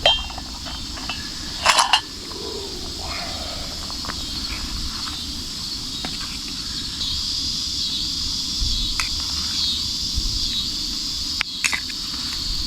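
Insects chirring steadily in a high, rippling drone, with a couple of brief knocks or clatters close by, the loudest about two seconds in and another near the end.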